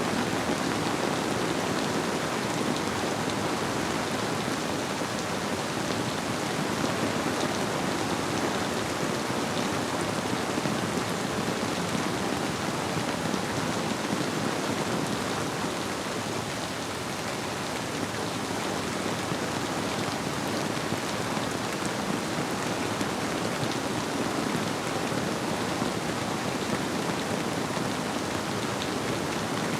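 Steady rainfall blended with a flowing river, an even wash of sound with no breaks.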